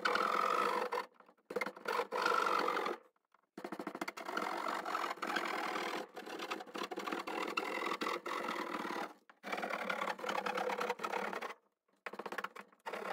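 Hand-held sheetrock knife sawing through drywall along a traced outline: a rasping scrape in several long strokes with short pauses between.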